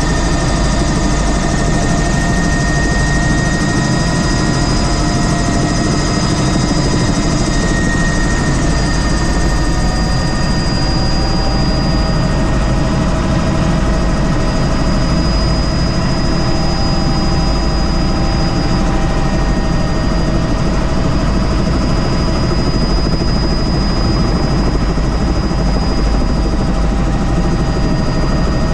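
Helicopter's turbine engine and rotor running loud and steady, a constant high whine over dense, even noise.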